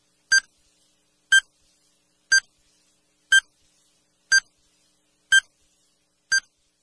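Countdown timer sound effect beeping once a second: seven short, identical, high electronic beeps with silence between them.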